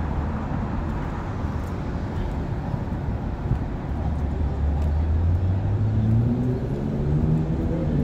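Steady traffic rumble, with a motor vehicle's engine whose pitch climbs steadily from about halfway through, as when it pulls away and speeds up.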